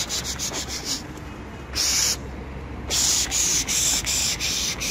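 A person hissing through the teeth to drive pigeons into their coop: a short hiss at the start, another about two seconds in, and a longer one from about three seconds in.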